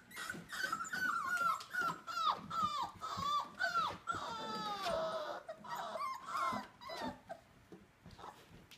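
Labrador retriever puppies whining and yelping in quick succession, short high calls that slide down in pitch, with one longer drawn-out whine about halfway through. The calls die away near the end.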